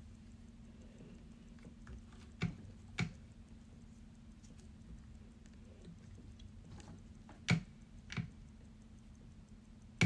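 Small sharp clicks and taps of watchmaker's tools handling a mechanical watch movement during disassembly: a pair about two and a half seconds in, another pair near the end, and a few fainter ticks, over a low steady hum.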